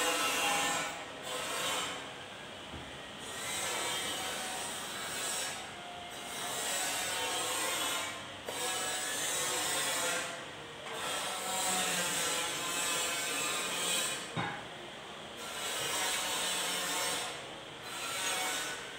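Ratchet wrench clicking in repeated rasping strokes, about one every one to two seconds, as the bolts holding the cooling fan to the engine's pulley are run in.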